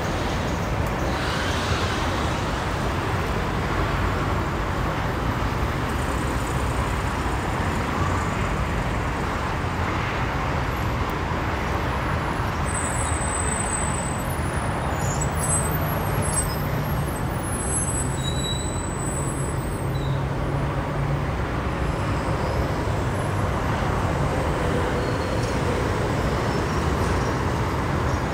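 Steady freeway traffic noise from slow, heavy traffic including big trucks, with a low engine drone that grows stronger about halfway through.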